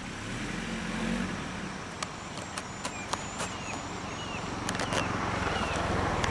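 Vehicle engine running steadily at idle, with short repeated bird chirps and a few sharp clicks in the middle.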